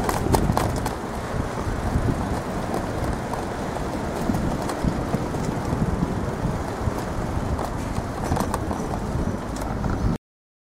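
Constant rattling and knocking from a camera clamped to a bicycle's handlebars, jolting as the bicycle rides over the road, with many sharp little clicks over a low rumble. The sound cuts off suddenly near the end.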